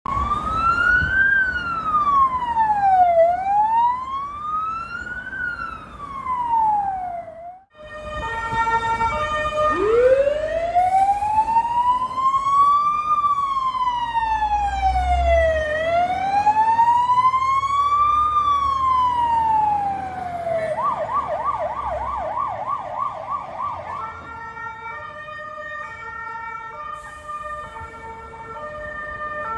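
Fire and rescue vehicle sirens passing. A slow rising-and-falling wail changes partway through to a fast yelp, about four cycles a second, then to steady alternating tones. A heavy truck engine rumbles underneath around the middle.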